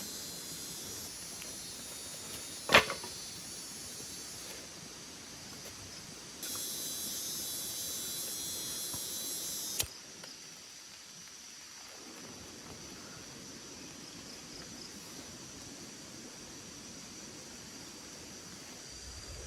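Forest ambience: a steady hiss under a layer of high, even insect-like tones that switch on and off abruptly. A single sharp swish or strike comes about three seconds in.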